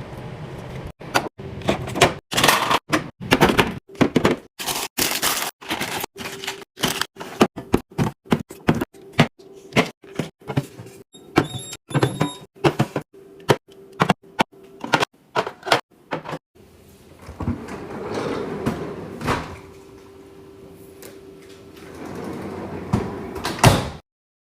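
Restocking a snack drawer and mini fridge: packaged snacks and drinks being knocked, clacked and set down in quick succession, with drawers or doors sliding and thudding, in short choppy edits. Past the middle the sound turns softer and busier, with fewer knocks, and it ends on one loud knock before cutting off.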